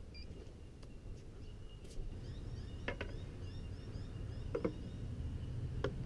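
Quiet outdoor background with a steady low rumble. In the middle comes a run of short high chirps, about three a second, and a few sharp clicks are scattered through.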